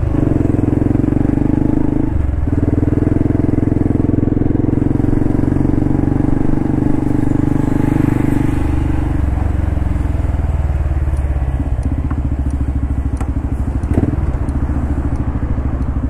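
Honda Cross Cub JA45's 110 cc single-cylinder four-stroke engine running under the rider while riding along. The note breaks briefly twice in the first few seconds and drops about ten seconds in. A single sharp click sounds near the end.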